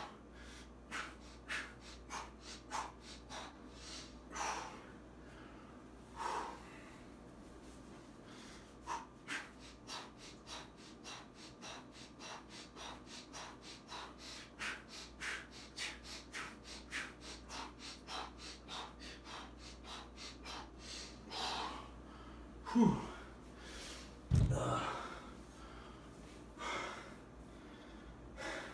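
A man breathing hard from exertion during high-rep light dumbbell raises: short, quick breaths in and out, about one or two a second. Near the end come a louder falling groan and then a low thump.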